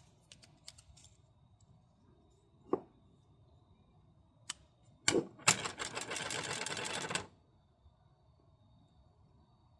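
A precision measuring tool clicking as a piston ring's thickness is gauged: a few single sharp clicks, then a run of rapid clicking lasting about two seconds past the middle.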